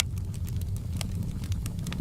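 Fireplace wood fire crackling: scattered sharp crackles and pops, the loudest right at the start and about a second in, over a steady low rumble of burning.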